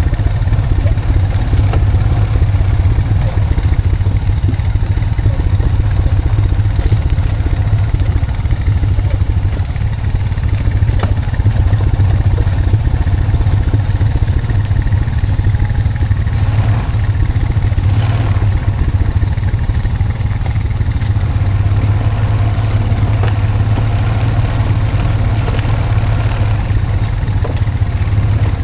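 Honda Foreman 520 ATV's single-cylinder four-stroke engine running steadily, with occasional knocks and rattles over it.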